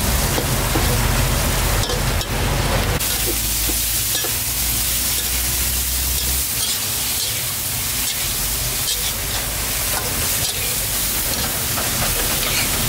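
Food frying, with a steady sizzle and a few faint clicks.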